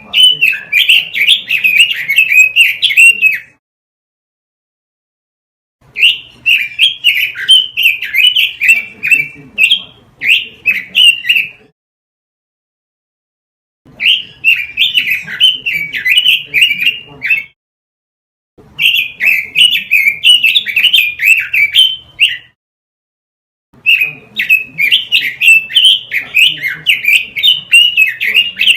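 Pekin robin (red-billed leiothrix) singing rapid, varied warbling phrases a few seconds long, with short pauses between them, five phrases in all.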